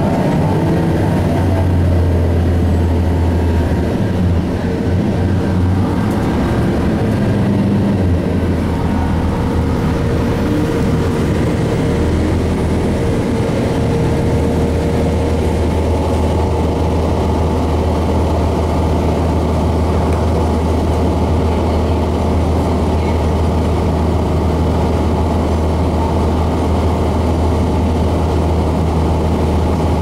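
Cummins ISC inline-six diesel of a 2002 Blue Bird CS transit bus running, heard from inside the bus as a steady low drone. The drone shifts for the first eight seconds or so, then holds steady.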